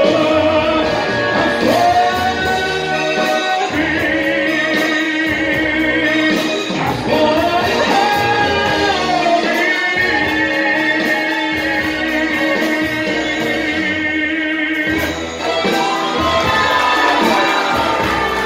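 A man singing into a handheld microphone over instrumental backing music, holding long notes.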